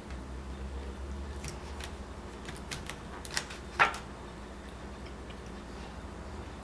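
A handful of short clicks and crackles from the pie slice's packaging being worked open, the loudest just under four seconds in.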